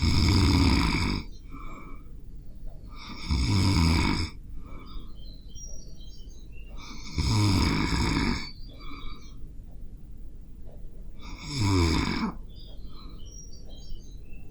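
A person snoring in their sleep: four loud snores, each about a second long, coming about every four seconds, with quieter breathing noise between them.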